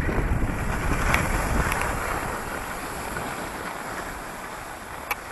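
Wind buffeting the microphone: a steady rushing noise that slowly eases off, with a few faint clicks, one about a second in and one near the end.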